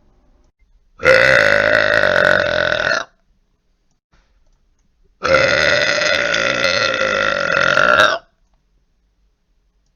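Two long, loud human burps with near silence between them. The first lasts about two seconds, the second about three, each held at a fairly steady pitch and each cutting off suddenly.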